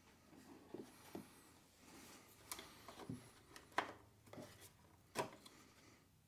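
A handful of faint, sharp clicks and knocks from handling parts during an engine oil refill and dipstick check. The loudest comes a little under four seconds in, and another about five seconds in.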